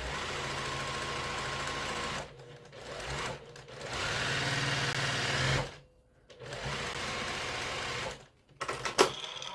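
Domestic sewing machine stitching a quilt seam in four runs with short stops between, the second run brief and the third the loudest, then a few clicks and one sharp snap near the end. The machine has been acting up, which the sewer thinks is down to her thread spool.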